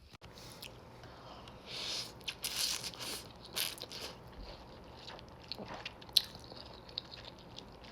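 A person eating: biting and chewing food, with scattered short mouth clicks and wet noises, busiest a couple of seconds in.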